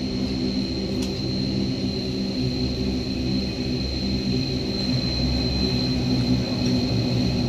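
The two turboprop engines of a Bombardier Q400 running while it taxis, with a steady high whine over a low propeller drone.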